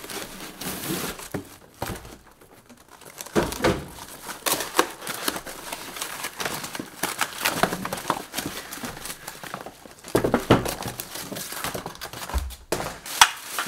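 Cardboard box inserts and a plastic bag being handled and pulled apart: irregular rustling, crinkling and scraping, with sharp clicks and knocks, and a brief lull a couple of seconds in.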